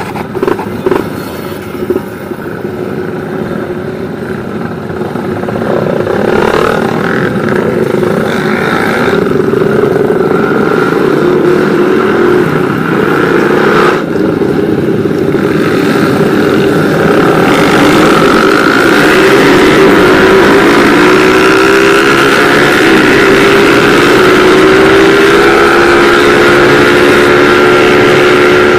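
Motorcycle engines of a riding group running and pulling away, with road and wind noise. In the second half the engine note rises and holds as the bikes accelerate along the road.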